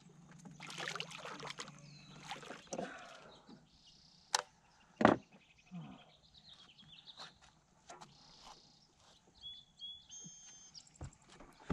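Quiet pond ambience around a small fishing boat, broken by two sharp knocks about four and five seconds in, the second one the loudest. A few short high chirps come near the end.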